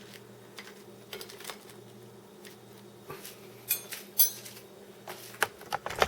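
Light clicks and clinks of utensils against a plate as a cut pot sticker is handled, a few sharper knocks in the second half, over a steady low hum.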